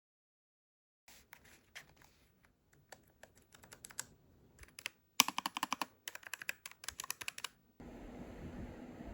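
Typing on a Logitech G515 low-profile mechanical keyboard: scattered keystrokes starting about a second in, then a quick, dense run of key presses in the middle. Near the end the clicking stops and a steady hiss takes over.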